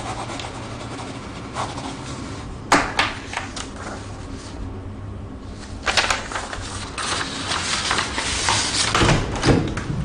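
Papers handled and shuffled on a desk, with a few sharp clicks early on and a stretch of rustling and small knocks from about six seconds in, over a steady low hum.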